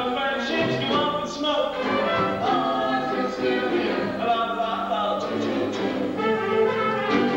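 Musical-theatre song performed live: stage voices singing a show tune over orchestral accompaniment, heard through a VHS camcorder recording.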